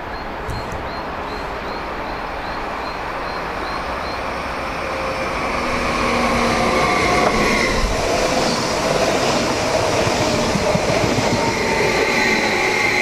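Abellio Stadler FLIRT electric multiple unit coming into the platform. It grows louder about six seconds in, then runs past close by with wheel-on-rail noise and whining motor and wheel tones that shift in pitch.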